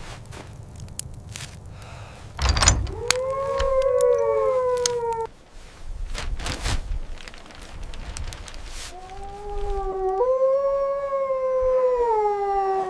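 Wolves howling: two long howls, each rising and then falling in pitch. The second begins about nine seconds in and steps up partway through. A thump comes just before the first howl, and scattered knocks run between the howls.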